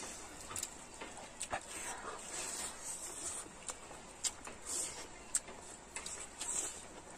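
Close-up eating sounds of people eating rice with their hands: chewing and lip smacks, with several sharp mouth clicks scattered through.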